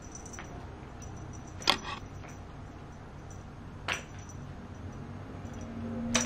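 A cat toy jingling in three brief metallic clinks, about two seconds apart, as a cat bats at it.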